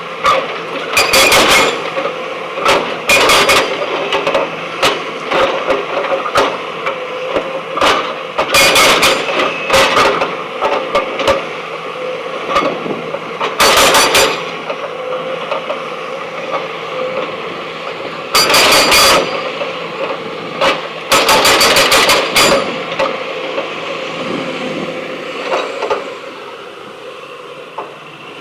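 A backhoe excavator breaking stone: its engine runs steadily under repeated short bursts of rapid hammering and clatter, about seven of them.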